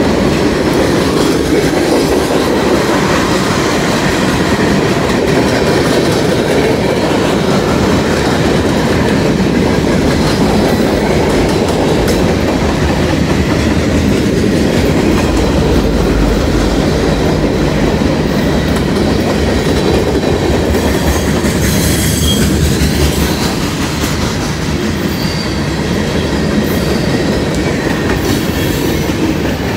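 Freight cars of a CSX mixed-manifest train rolling past close by: a loud, steady rumble and clatter of steel wheels on rail. There is a brief stretch of high-pitched wheel squeal about two-thirds of the way through, after which the noise eases slightly.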